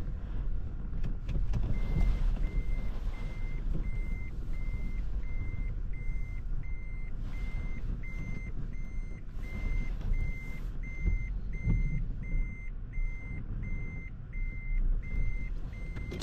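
Toyota Prius α's in-cabin reverse warning beep: a single high beep repeating evenly, about three beeps every two seconds, starting about two seconds in. Under it runs the low rumble of the car.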